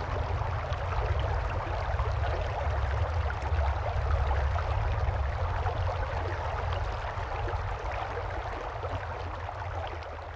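Flowing river water rushing and lapping, a steady crackly wash with a low rumble underneath, slowly getting quieter over the last few seconds.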